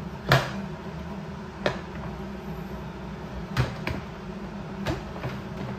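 Sharp plastic clicks and knocks from a SodaStream Terra soda maker being handled as its CO2 cylinder is fitted: about five separate clicks, the first the loudest.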